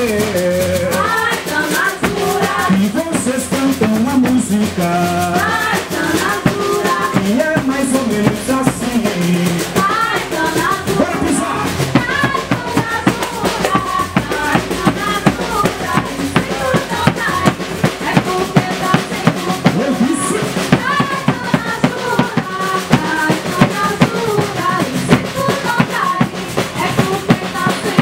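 Live coco band playing a steady percussion groove: a rope-tensioned bass drum beaten with sticks, a pandeiro, a metal ganzá shaker and a drum kit, with a wavering melody line over the beat.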